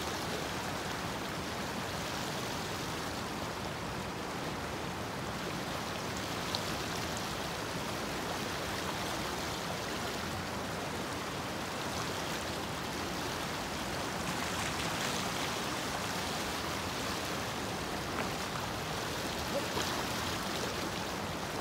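A small, shallow stream running steadily over gravel: an even wash of water noise. A few faint clicks sit on top of it.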